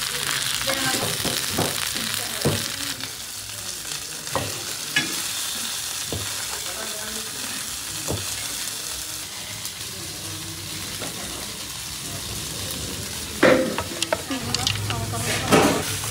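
Gyuma, Tibetan blood sausage, being reheated in a hot pan: a steady sizzle of frying, with scattered knocks of a spatula stirring it against the pan. Two louder clatters come near the end.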